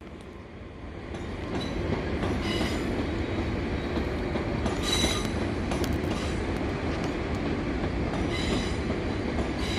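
A train moving along the track, its wheels rumbling, with several brief high wheel squeals, the loudest about five seconds in. The sound grows over the first two seconds as the train draws closer.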